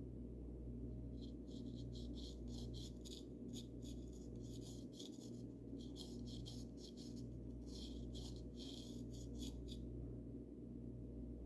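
Paintbrush brushing paint onto a birdhouse: short, scratchy bristle strokes in quick runs, with a pause midway. A steady low hum sits underneath.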